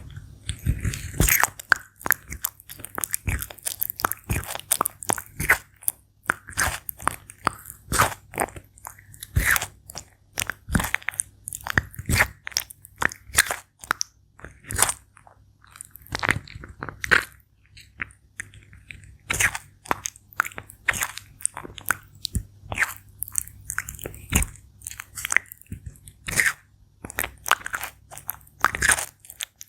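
Sulcata tortoise biting and chewing crisp fruit: a steady run of wet, sharp crunches, one to two a second.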